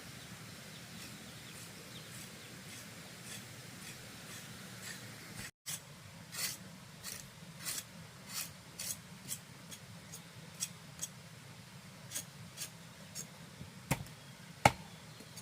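Irregular short, crisp clicks and snips of hand work, over a low steady hum, with two sharper clicks near the end.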